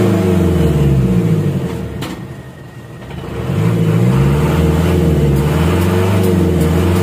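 Isuzu Elf's 4HL1 diesel engine being revved by the accelerator pedal, heard from inside the cab: it falls back from about 4,000 rpm toward idle in the first two or three seconds, then is revved up again in several rises and falls. It revs freely, the low-power fault caused by a wiring problem now fixed.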